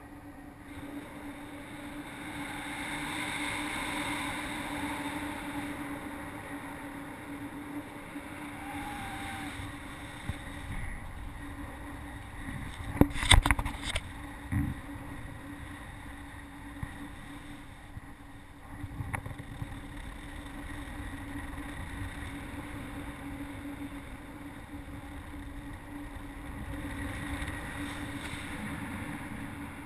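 Airflow rushing past a paraglider pilot's helmet camera in flight, a steady noisy rush with a low hum underneath that swells and eases. A few loud knocks or bumps come about halfway through.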